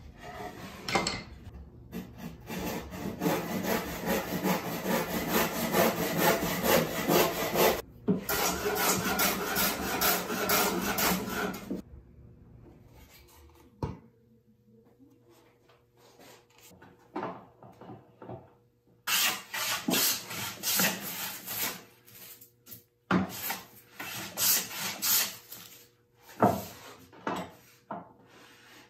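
Fast, rhythmic strokes of a hand tool cutting or shaving a pine board, with a brief break near 8 s and a stop at about 12 s. After a quieter stretch, more runs of strokes come in the second half.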